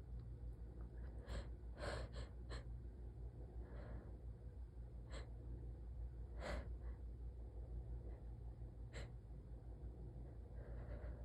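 A woman with a cold breathing and gasping as a sneeze builds up, with several short, sharp stifled bursts; the strongest is about six and a half seconds in. A steady low hum lies underneath.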